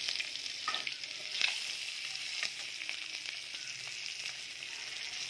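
Eggs sizzling in hot oil in a frying pan, with a few sharp clicks of a spatula against the pan as they are turned and lifted out.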